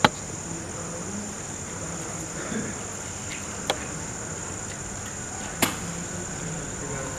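Crickets chirping in a steady high trill, broken by three sharp clicks, matches being struck to light a firework fuse: the loudest right at the start, then at about three and a half and five and a half seconds in.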